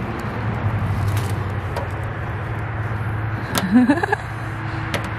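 A steady low vehicle hum with a few light clicks as a plastic tailgate letter is pressed into place. A short murmured voice sound comes a little past halfway.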